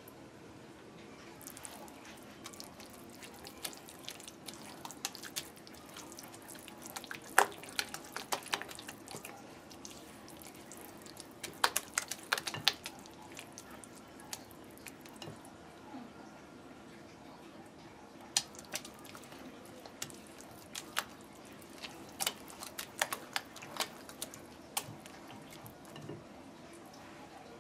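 Silicone spatula stirring a wet batter of grated cassava, grated coconut and condensed milk in a glass bowl: irregular wet squelches and clicks, coming in clusters of quicker strokes.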